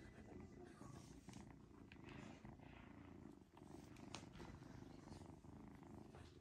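A British shorthair kitten purring softly, a low, fast rumble, with a few sharp clicks, the strongest about four seconds in.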